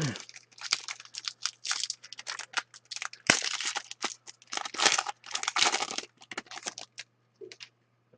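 Trading-card pack wrapper torn open and crinkled, with the cards handled, in a run of quick irregular rustles and crackles that thin out near the end. A faint steady low hum runs underneath.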